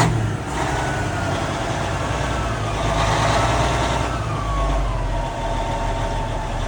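Caterpillar D8N bulldozer's Cat 3406 diesel engine just after firing up on cranking, its no-start cured by new batteries. It flares loudly at first, settles within about half a second into a steady idle, and a faint whine falls slowly in pitch over the next few seconds.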